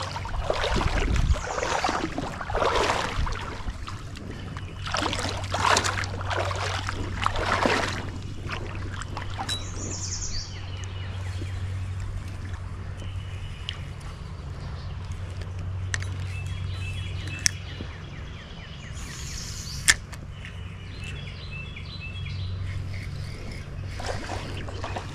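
Outdoor ambience: a steady low hum with bird chirps, swelling bursts of noise during the first eight seconds, and two sharp clicks in the second half.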